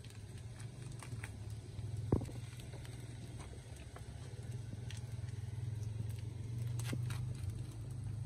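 A steady low hum throughout, with a few sharp clicks and one loud crack about two seconds in.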